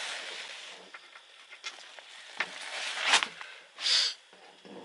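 Handling noise from a semi-hard fabric sewing machine cover: rustling with a few light clicks and knocks, and a short rustle near the end.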